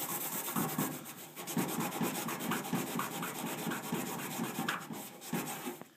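Scotch-Brite scouring pad, wet with a CLR and water mix, scrubbed by hand in quick back-and-forth strokes over a rusty painted metal body panel, a steady scratchy rubbing as the surface rust is scoured off. It stops just before the end.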